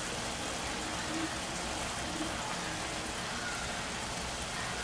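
Cream sauce with chicken bubbling and sizzling at a boil in a stainless steel skillet over a high flame: a steady hiss.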